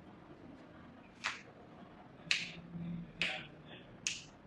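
Four sharp cracking pops about a second apart: joints popping as a chiropractor adjusts the patient's spine and limbs.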